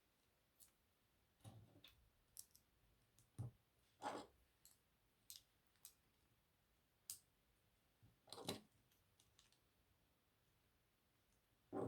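LEGO bricks being handled and pressed together: quiet, scattered plastic clicks and taps, about one every second.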